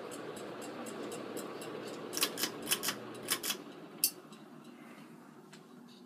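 Late-1980s View Fan V48R ceiling fan running with a steady whirring hum, with a quick run of sharp clinks between about two and four seconds in. The hum drops off somewhat after the clinks.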